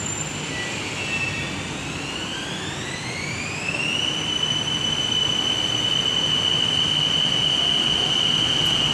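BTS Skytrain electric train pulling out of the station. The traction motors give a whine that rises in pitch for about a second and a half, then holds a steady high tone as the train gathers speed. Under it runs the rumble of the cars moving past, growing louder as it moves off.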